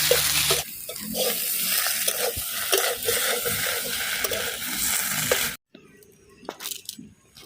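Food sizzling as it fries in oil in a pan, with repeated stirring strokes; the sizzle cuts off abruptly about five and a half seconds in, leaving a few quiet clicks.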